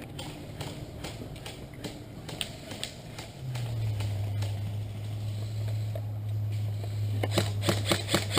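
Airsoft gun shots: scattered faint clicks at first, then from near the end a rapid, evenly spaced string of shots at about four or five a second. A steady low hum comes in about a third of the way through and holds.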